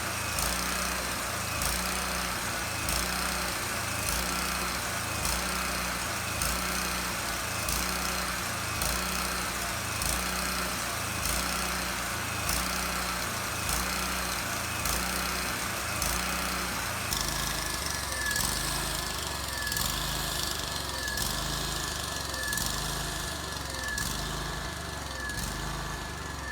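Sawmill engine running steadily with a regular beat a little over once a second. About 17 seconds in, a thin high whine joins it and the beat quickens slightly.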